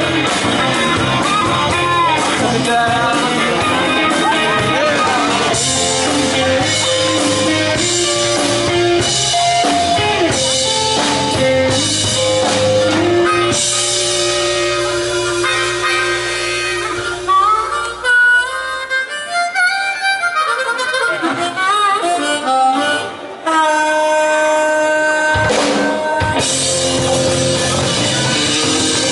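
Live blues band with an amplified blues harmonica played cupped against a microphone, over electric guitar, bass and drums. Past the middle the rhythm section drops out, leaving held notes and bending harmonica phrases. The full band then comes back in with a held chord.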